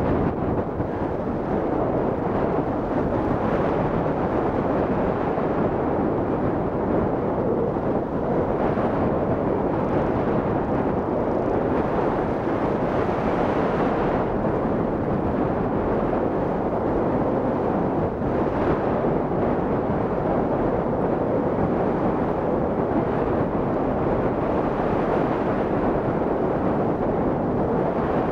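Steady rush of airflow over the microphone of a camera mounted on a hang glider in flight, with slow swells in strength.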